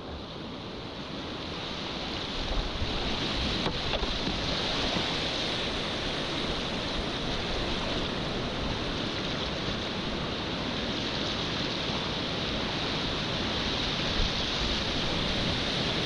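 Rushing whitewater of a river rapid, growing louder over the first few seconds and then holding steady.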